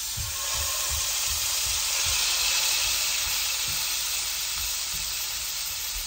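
Pork loin roast searing in a very hot cast-iron skillet: a loud, steady sizzle that bursts out as the meat goes into the pan.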